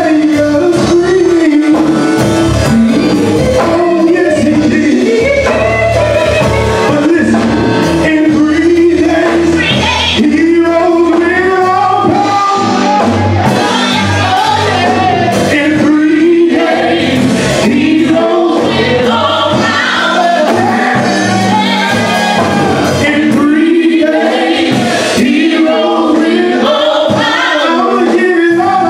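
Gospel praise song sung by a church praise team at microphones over instrumental backing with steady low bass notes.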